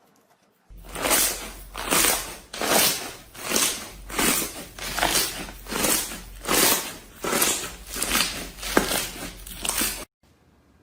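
Slime being squished and pressed over and over in a steady rhythm, a crackly squishing stroke roughly every 0.7 s, about a dozen in all, stopping suddenly near the end.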